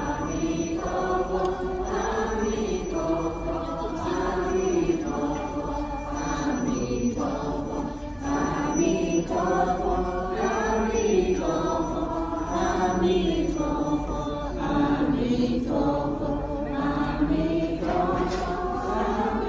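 Buddhist monks and nuns chanting together in unison, a slow melodic chant that rises and falls in phrases of a second or two.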